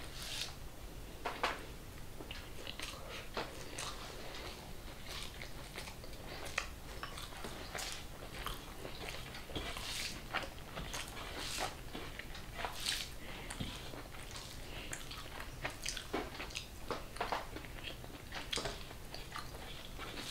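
A person chewing food at close range, with irregular short, sharp mouth clicks and crunches.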